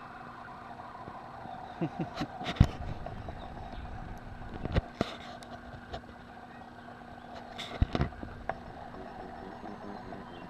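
A steady background hum with a few sharp knocks and clicks, bunched about two, five and eight seconds in.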